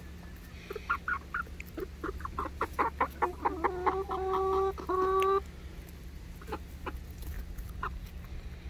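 Hens clucking as they peck grain from a hand: a run of quick short clucks builds into two longer, held calls about halfway through.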